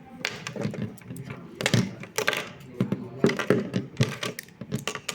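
An irregular series of sharp clicks and knocks, about a dozen over a few seconds, with the loudest strikes in the middle.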